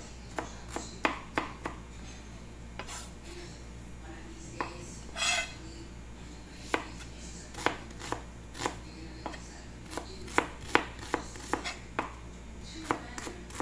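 Chef's knife chopping on a white plastic cutting board: irregular sharp knocks as the blade hits the board, dicing green mango at first and then a small red onion. A brief rushing noise about five seconds in.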